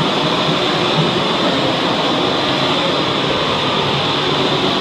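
Handheld long-wand gas torch burning with a steady, loud, even rushing noise.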